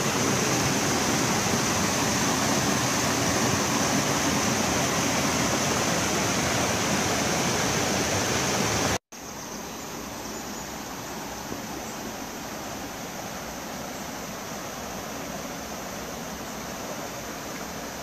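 Steady rush of a mountain creek flowing over rocks in a small cascade. About halfway through it cuts off abruptly and comes back quieter and more distant.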